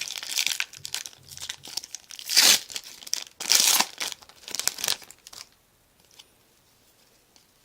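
A Topps baseball card pack wrapper being torn open and crinkled by hand, in a run of loud crackling rips that stop about five seconds in.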